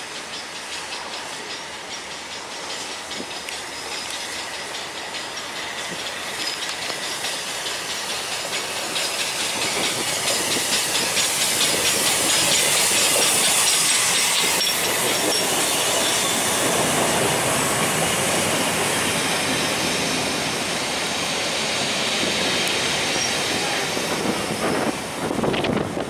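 Steam locomotive LMS Jubilee 45596 Bahamas, a three-cylinder 4-6-0, running past with its train: the rapid steam exhaust beat and wheel clatter build up to their loudest about halfway through, then the coaches keep rolling past.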